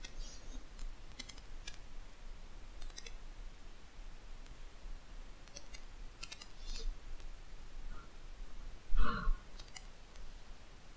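Scattered light clicks in a quiet room, some single and some in small clusters, with one short, louder sound about nine seconds in.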